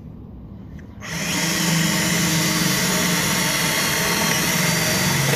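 Cordless drill with an extension and a small bit, running steadily from about a second in as it bores a pilot hole through the steel fender and wheel-well flange.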